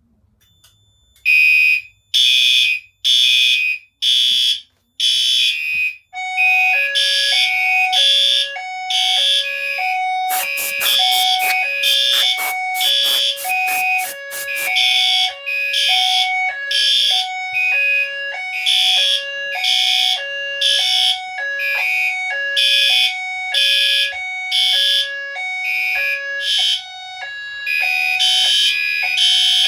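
Fire alarm horns going into alarm after a conventional smoke detector trips. Loud pulses start about a second in, and from about six seconds in a second signal joins them with a hi-lo two-tone alternation, with a few seconds of rapid clicking in the middle.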